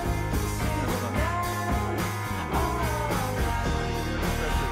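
Background rock music with guitar.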